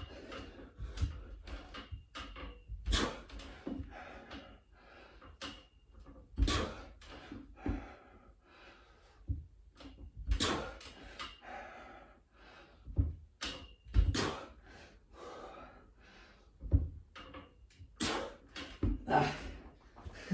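Irregular knocks and creaks from a freestanding pull-up tower's metal frame as a man does pull-ups on it, with hard, effortful breaths in between.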